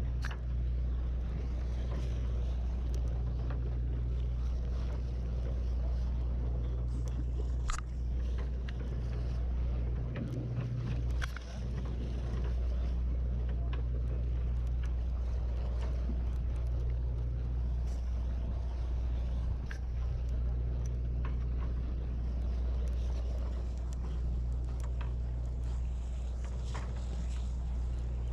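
A sportfishing boat's engine running with a steady low drone, easing briefly about ten seconds in, with scattered faint clicks and knocks over it.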